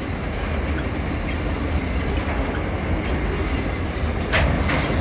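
Freight train of covered hopper cars rolling past: a steady rumble of steel wheels on the rails, with two sharp clacks about four seconds in.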